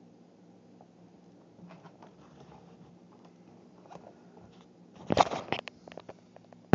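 Camera handling noise over a low steady hum: faint rustling, then a loud crackling scrape against the microphone about five seconds in, a few clicks, and a sharp click as the recording stops.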